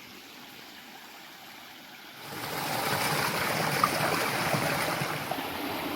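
Running water with a steady rushing and splashing sound, faint for the first two seconds and then much louder.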